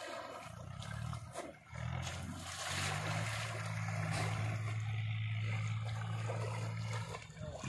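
Water splashing and sloshing as a bullock swims through a pond, with a steady low hum underneath that drops out briefly near two seconds in and stops about a second before the end.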